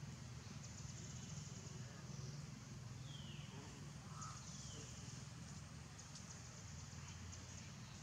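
Faint outdoor ambience: a steady low hum and a high hiss, with three short, high squeaks falling in pitch, about three seconds in, a second later, and near the end.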